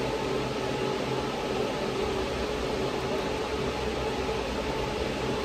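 Steady whir of electric fans running, an even rushing noise with a faint constant hum.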